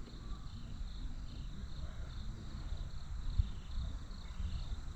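Insects chirping in a steady, evenly repeating high-pitched pulse, over a constant low rumble.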